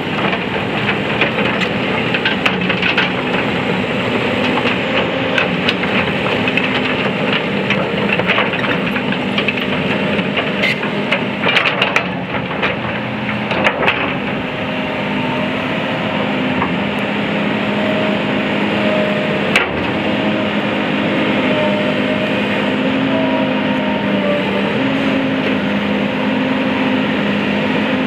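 2005 Volvo EC240BLC hydraulic excavator's diesel engine running steadily while its hydraulics move the boom, stick and thumbed bucket. Scattered clicks and knocks come in the first half and one sharp knock about two-thirds through.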